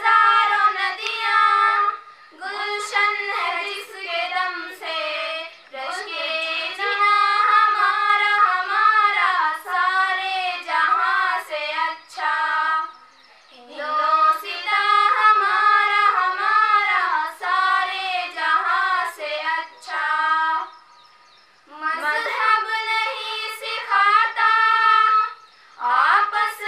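Two young girls singing a song together into a microphone, without accompaniment, in long phrases with short pauses for breath.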